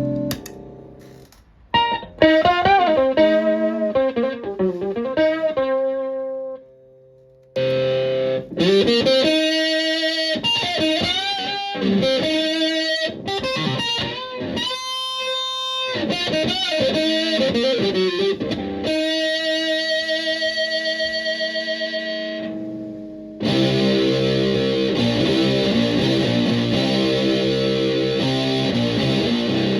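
Electric guitar through a Green Ringer octave-up pedal. It opens with clean octave single notes, bends and vibrato. From about eight seconds in the octave is run into a Big Muff fuzz, with notes played high on the neck. Near the end it switches to heavy, sustained fuzzed chords in low doom tones.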